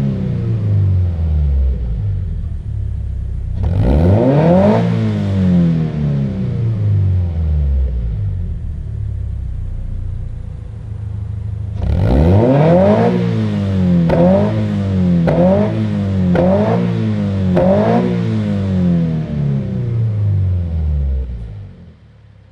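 Subaru BRZ's 2.0-litre flat-four through a BLITZ NUR-SPEC VSR Style D stainless straight-through exhaust, revved with the car standing still. It falls back from a rev, is revved once more, idles briefly, then is revved again with four quick throttle blips about a second apart, before dropping back to idle and fading out near the end.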